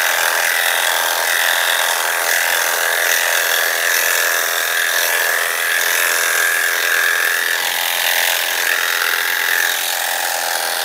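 Electric dog clipper running steadily, its blade shaving through a standard poodle's coat, with a constant high hum over a hiss.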